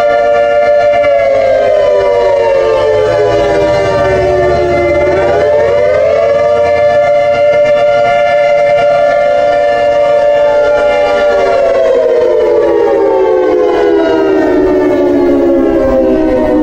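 Outdoor civil defense warning siren sounding a test, loud. Its tone slides down in pitch over the first few seconds, climbs back up about five to six seconds in, holds steady, then slides down again from about eleven seconds on.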